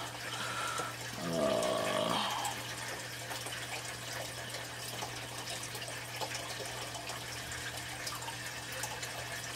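A steady background hiss like running water over a constant low hum, with a short murmured voice about a second and a half in.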